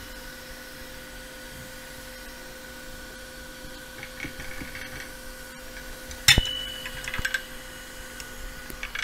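Metal of an aluminium phone-opener clamp clinking: a faint steady hum, then about six seconds in a sharp metallic clink that rings on briefly, followed by light rattling.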